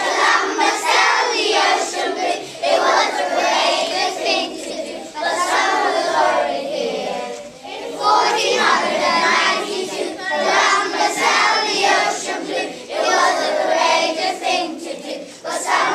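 A group of young children singing a song together, in phrases of a few seconds with short breaks between them.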